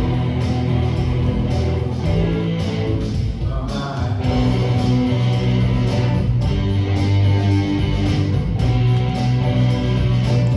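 Worship band playing an instrumental passage led by strummed guitar over a steady bass line.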